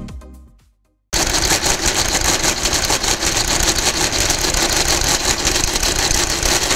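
Friden electromechanical square-root calculator running a calculation: a fast, dense, steady clatter of its motor-driven gears and shifting carriage, starting about a second in. The tail of intro music fades out at the very beginning.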